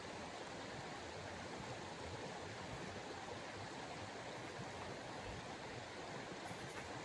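Steady, even rushing noise like running water, unchanging, with no distinct knocks or clicks.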